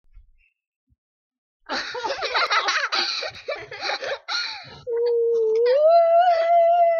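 Laughter, then one long howl: a single held note that climbs in pitch about halfway through and holds to the end.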